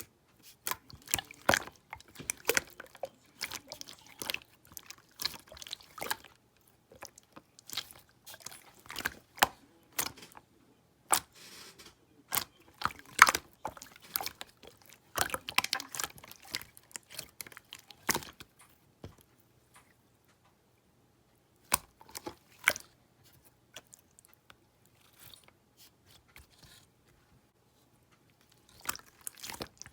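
Slime being handled by hand, giving off quick runs of crackling clicks and pops that are dense at first and thin out into scattered bursts with short pauses about two-thirds of the way in.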